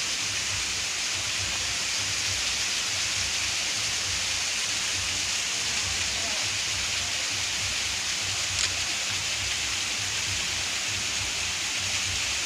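Waterfall pouring: a steady rush of falling water, with one brief click about eight and a half seconds in.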